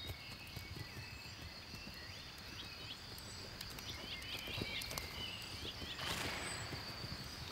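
Quiet meadow ambience: a steady high-pitched insect drone, with a run of short bird chirps in the middle and a brief rustling hiss about six seconds in.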